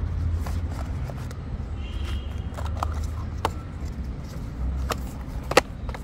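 Camera box packaging being handled: a few short sharp clicks and taps over a low steady rumble. The sharpest click comes near the end.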